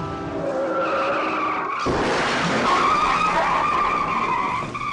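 A 1964 Chevrolet Impala lowrider's tyres squealing as the car accelerates hard away. A rising engine note comes first, then the squeal bursts in about two seconds in and is loudest from there on.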